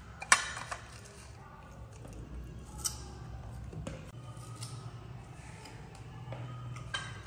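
A few sharp clinks of crockery, the loudest about a third of a second in and others near three seconds and near the end, over a low steady hum.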